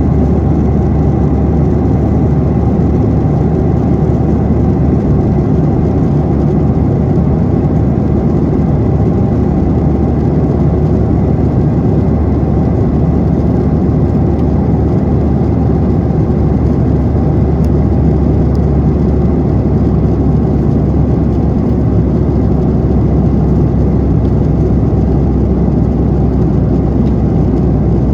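Boeing 737-800's CFM56 jet engines running steadily, heard inside the passenger cabin as a constant low hum and rush of noise.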